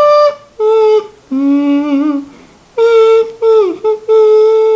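A man humming a tune in a string of held notes, a lower wavering note in the middle and some notes sliding down at their ends.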